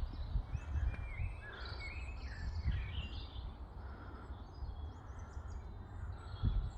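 Small birds chirping and twittering in short notes over a steady low rumble of wind on the microphone.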